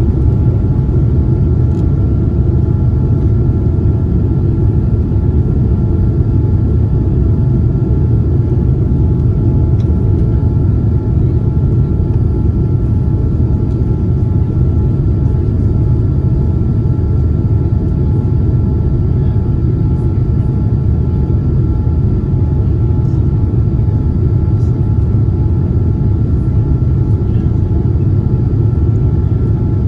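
Steady cabin noise inside a Boeing 787-9 airliner with GEnx engines running: a deep even rumble with a few faint steady whining tones above it.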